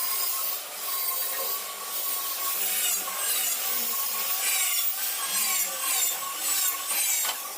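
A power tool grinding stone: a continuous gritty hiss over a steady, slightly wavering motor whine.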